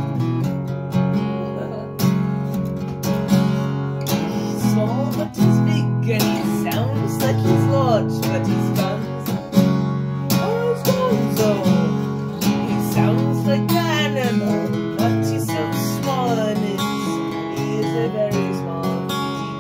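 Steel-string acoustic guitar strummed in steady chords. Through the middle stretch a man's voice sings along over it, gliding up and down in pitch.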